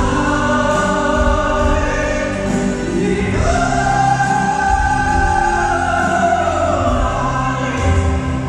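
Live concert music: a woman singing a slow song with the band and piano, drawing out long notes, one held for several seconds in the middle.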